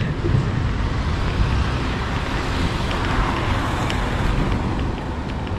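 Street traffic noise: a vehicle passing, growing louder about halfway through and then easing off.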